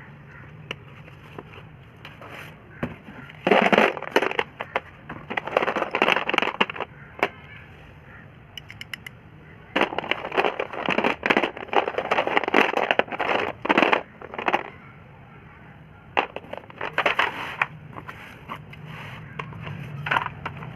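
Slate pencils crunching and snapping in several crackly bursts of a second or a few seconds each, over a low steady hum.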